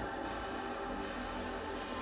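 Background music with sustained tones.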